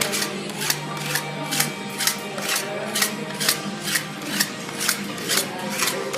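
Metal spatulas striking a cold steel plate in a steady rhythm, about two to three sharp clacks a second, as strawberries are chopped into the ice cream base.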